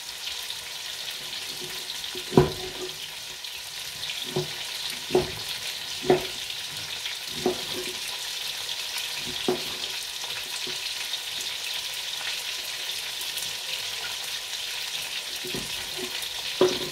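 Steady sizzle of food frying in a pot on the stove, with a kitchen knife knocking on a cutting board every second or so, irregularly, as meat is cut.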